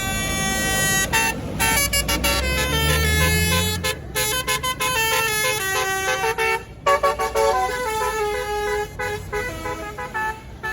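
Tour bus's Basuri telolet horn playing a fast tune of short stepped notes, over a low diesel-engine rumble for the first four seconds.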